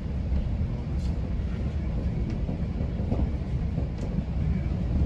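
Steady low rumble of a GO Transit bilevel passenger coach running at speed, heard on board, with a few faint clicks from the wheels or fittings.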